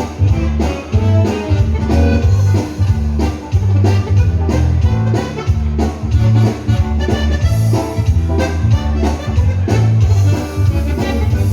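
Upbeat dance-band music with a steady beat and a strong pulsing bass line, played live in a dance hall.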